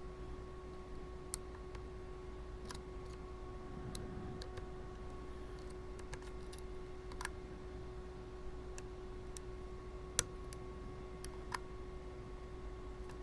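Faint, irregular metallic clicks and ticks of a lock pick and tension wrench working the five pin stacks of a 40 mm brass padlock during single-pin picking, with the sharpest click about three-quarters of the way through. A steady low electrical hum runs underneath.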